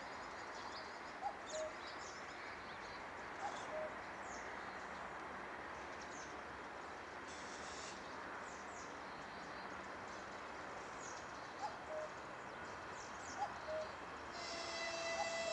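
Birds chirping over a steady outdoor hiss, with a short two-note call repeating every couple of seconds. Near the end a distant locomotive horn begins, one steady tone: the approaching 3ES5K Yermak electric locomotive sounding its horn.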